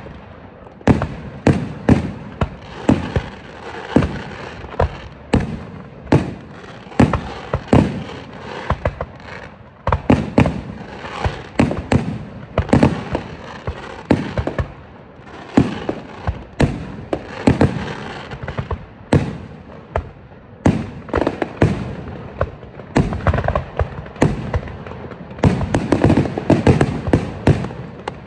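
Display fireworks: aerial shells bursting in a rapid barrage of sharp bangs, several a second, growing denser near the end.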